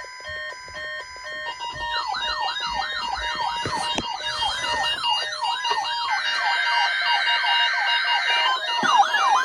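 Electronic alert alarms sounding together at the start of a weather radio test alert. First come stacked beeping tones. From about two seconds in, a warbling siren sweeps up and down about twice a second over steady tones.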